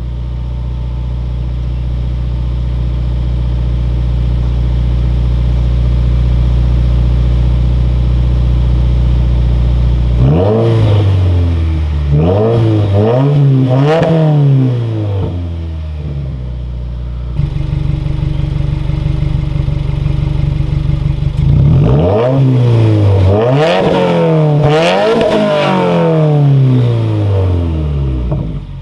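2015 Subaru WRX's turbocharged flat-four, with a muffler-delete exhaust, idling steadily, then blipped through several quick revs that rise and fall. It settles back to idle for a few seconds, then is revved again several times.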